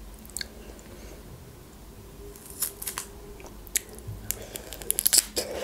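Biting into and chewing a juicy red grapefruit wedge close to the microphone: a run of short wet clicks and smacks that starts about two seconds in and grows thicker near the end.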